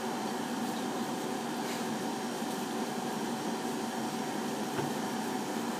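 Steady mechanical background hum with a faint constant tone; no distinct licking or other sounds stand out.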